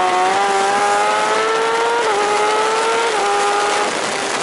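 A JSB1000 superbike's engine heard from on board, accelerating hard out of a corner. Its note rises steadily through the gears and drops back at two upshifts, about two and three seconds in, with wind rushing over the microphone.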